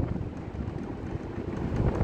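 Split air conditioner's swing louver mechanism making a faint fault noise as the blade swings, heard close up under a steady low rush of the unit's airflow on the microphone.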